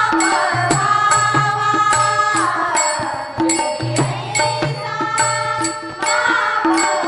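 Marathi bhajan: women singing a devotional melody in unison over sustained harmonium chords, with small brass hand cymbals (taal) struck in a steady beat about two to three times a second.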